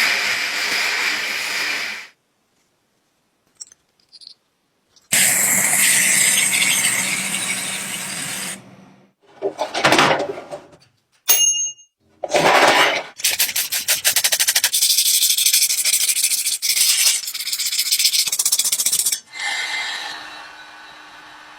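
Rusty metal of a small boat being sanded and scraped in a series of short clips: harsh rasping noise that starts and stops abruptly, with a silent gap of a few seconds early on. Across the later part it becomes a fast, steady rasp of rapid repeated strokes.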